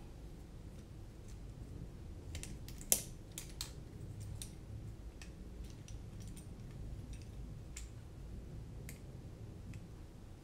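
Scattered small clicks and taps of a TCMM Black Bat 220 carbon-fibre drone frame's arms, plates and screws being fitted together by hand, with one sharper click about three seconds in.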